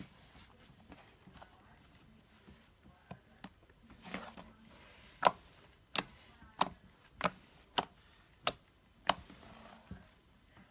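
Hands working a fluffy slime, giving a series of seven sharp pops evenly spaced about two-thirds of a second apart, with fainter clicks before them.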